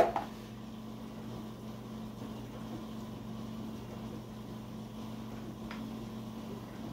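Steady low electrical hum over quiet room tone, with one faint tap about six seconds in.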